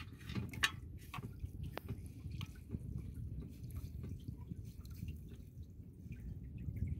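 Water dripping and splashing off a fine nylon gill net as it is hauled hand over hand into a boat, with many small irregular drips and clicks, a few sharper ones in the first second, over a steady low rumble.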